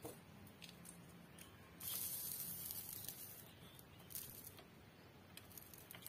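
Soldering iron melting solder onto a circuit-board joint, with the flux sizzling as a faint hiss for about a second and a half starting about two seconds in, plus a few light taps.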